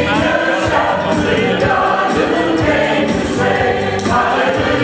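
A mixed choir of men's and women's voices singing together in sustained, harmonised lines.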